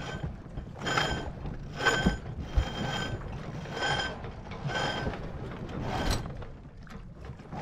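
A sailboat winch on a 1978 Catalina 27 being cranked with a winch handle to haul a line in tight. Its pawls ratchet in a burst with each stroke, about one stroke a second, six strokes in all.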